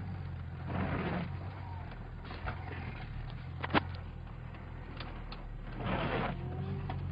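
Off-road vehicle's engine running steadily at low revs, heard from inside the cab as it crawls over a rough track. Two brief scraping swishes, about a second in and near the end, and a few sharp clicks and knocks.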